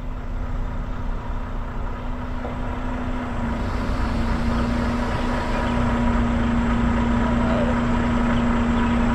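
Semi truck's diesel engine running with a steady hum, heard from inside the cab, growing slightly louder about three and a half seconds in.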